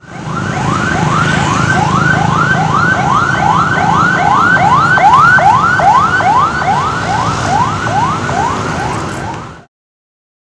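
Emergency-vehicle siren in a fast yelp, about three rising sweeps a second, over a low rumble; it cuts off suddenly near the end.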